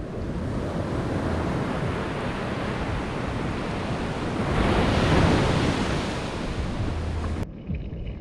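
Ocean surf washing up a sandy beach, swelling to its loudest about five seconds in; the sound cuts off abruptly near the end.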